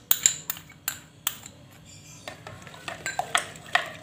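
A metal spoon clinking against a glass jug and bowl while mixing. A quick run of sharp clicks comes first, then after a short pause a few clinks that ring briefly.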